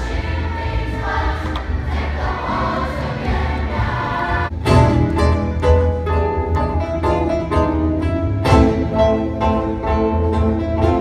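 School choir singing with acoustic guitar accompaniment. About four and a half seconds in it cuts abruptly to different music made of clear, held notes.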